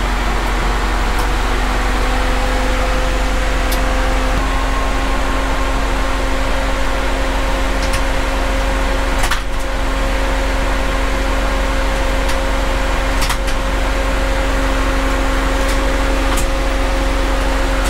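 Steady machine hum with a low rumble and two constant tones, and a few faint clicks scattered through it.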